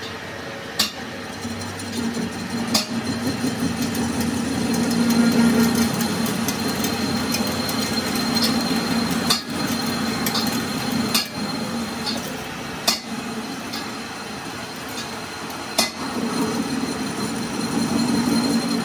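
Metal lathe turning a steel truck axle spindle part, the cutting tool taking a cut: a steady low hum that swells twice, a thin high whine, and sharp clicks every couple of seconds.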